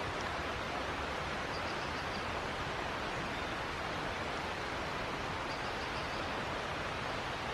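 Steady, even hiss of outdoor background noise, with a few faint high-pitched ticks.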